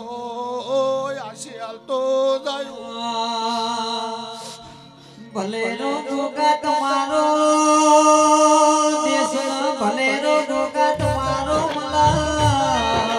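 A male voice singing a Gujarati devotional folk song, with ornamented and long held notes over a steady sustained accompaniment; drums come in about eleven seconds in.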